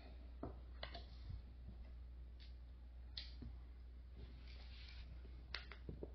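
Faint, scattered light clicks and taps of small hardware and particleboard parts being handled during flat-pack furniture assembly, over a steady low hum.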